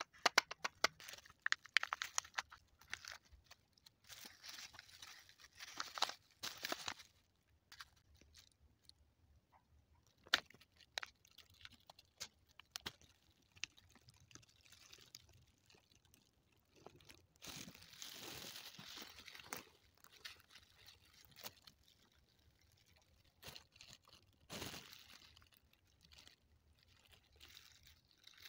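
Crinkling of thin plastic gloves and the Kinder Joy egg's plastic tray and peeled seal, with crisp cracks and crunches as the chocolate-covered wafer balls are broken into the cream. It comes in scattered clicks and short rustling bursts.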